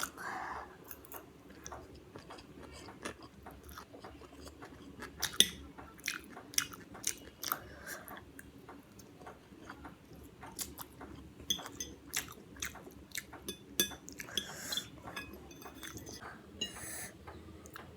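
Close-miked chewing of food, with irregular wet mouth smacks and clicks and a few breaths through the nose.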